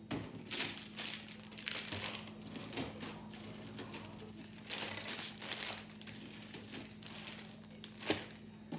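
Plastic food packaging crinkling and rustling in irregular bursts as it is handled, with one sharp knock near the end.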